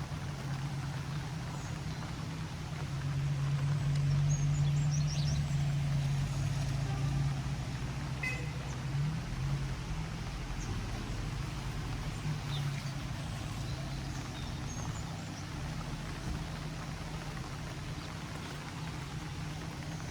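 Steady rain hiss with a low droning hum underneath that swells about three to seven seconds in, and a few faint bird chirps.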